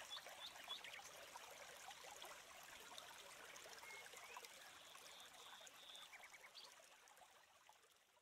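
Faint natural ambience: a soft trickling hiss with scattered small high chirps, fading away near the end.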